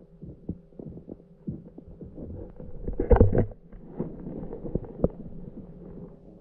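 Muffled sound picked up underwater: a steady low hum with scattered soft knocks and clicks. A louder burst of knocking comes about three seconds in.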